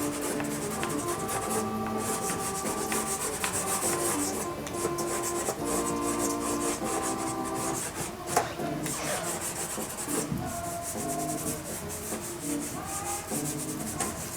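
Dry pastel sticks rubbing and scraping across primed pastel paper in quick repeated strokes. Quiet music with held notes plays underneath.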